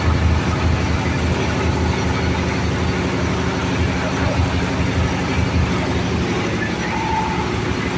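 Oil palm loose-fruit thresher running steadily under load: its drive engine gives a low, even hum under a dense clatter as palm fruit bunches are threshed and fruitlets pass through the screen.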